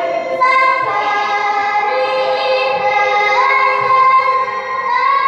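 A young woman reciting the Qur'an in melodic tilawah style into a handheld microphone. She holds long, high notes with ornamented turns and moves to a new held pitch every second or two.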